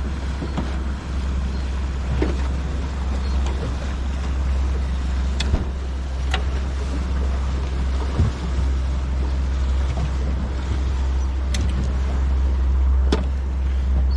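Steady low rumble aboard a small fishing boat on the water, with a few light clicks and knocks scattered through it.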